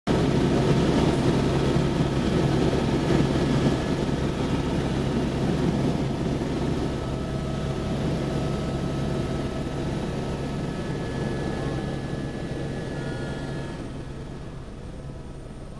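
Helicopter in flight, its engine and rotor running with a steady low hum and rushing noise, heard from inside the cabin. The sound grows somewhat quieter over the last couple of seconds.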